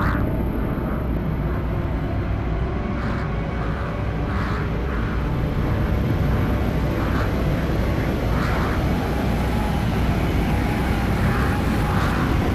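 Steady low rumbling rush of air past a free-falling skydiver's pressure suit and body-mounted camera, with soft hissing puffs repeating irregularly about every half second to a second.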